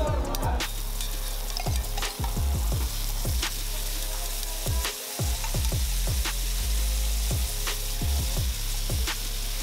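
Meat masala and chopped onions sizzling on a large flat iron griddle, with a metal spatula repeatedly scraping and knocking on the iron as the cook stirs and spreads the mixture.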